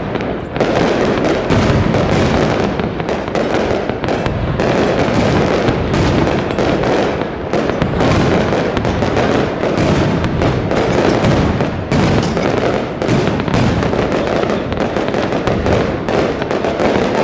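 Aerial fireworks display: shells bursting overhead in a rapid, near-continuous barrage of bangs over a steady rumble.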